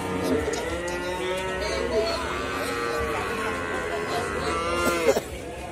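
Calves mooing: long, drawn-out calls, overlapping at times, that stop about five seconds in.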